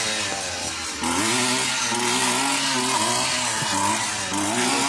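Petrol brushcutter running at high revs while cutting tall grass and weeds, its engine pitch rising and falling as the load changes, with a short dip about a second in.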